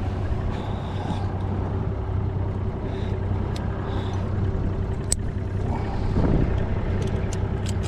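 Boat motor idling steadily under wind noise, with a few light clicks.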